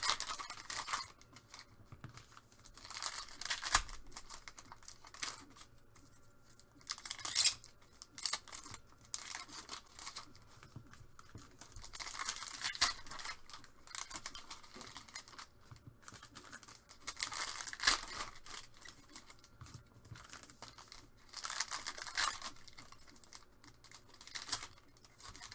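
Plastic wrapping and card packs being torn open and crinkled by hand, in repeated bursts of rustling and crackling with short pauses between.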